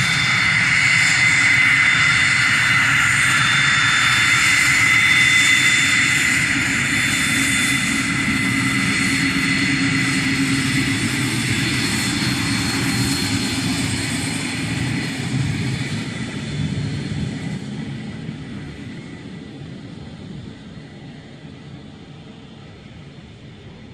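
The twin Pratt & Whitney Canada JT15D turbofans of a Cessna Citation II jet whine steadily over a low rumble as it taxis past. The sound fades over the last ten seconds as the jet moves away.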